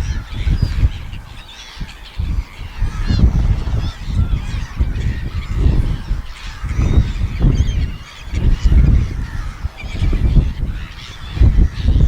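Seagulls calling, many short overlapping calls, over a low rumble that comes and goes in gusts.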